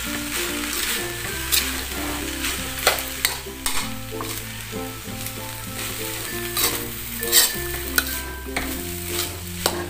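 Fried rice and shredded cabbage being stir-fried in a wok, with a metal spatula scraping and knocking against the pan at irregular intervals over a steady sizzle. Quiet background music plays underneath.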